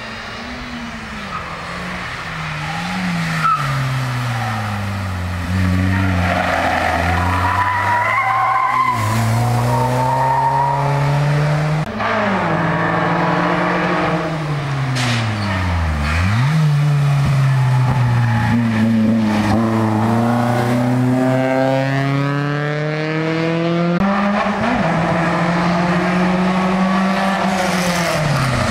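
Hill-climb race car engine coming up a winding course, revving hard and climbing in pitch through each gear, then dropping sharply on gear changes and braking. It grows louder as the car approaches.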